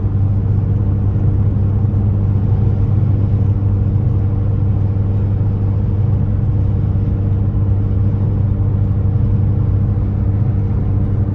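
Dodge Challenger SXT's V6 engine and exhaust running with a steady low drone while driving at a constant speed, no revving.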